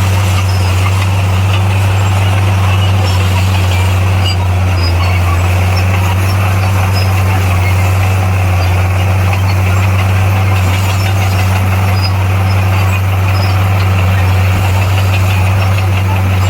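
Bulldozer's diesel engine running at a steady speed, a loud low drone that holds constant without revving.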